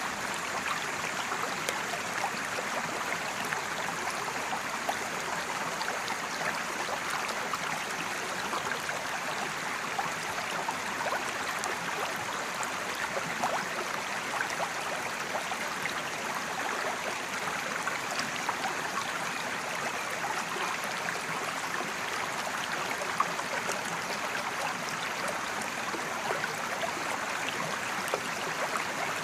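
Mountain creek flowing over rocks: a steady rushing and gurgling of water, with small splashes flecked through it.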